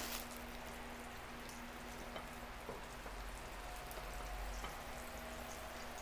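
Fish frying in hot oil: a steady sizzle with faint scattered crackles.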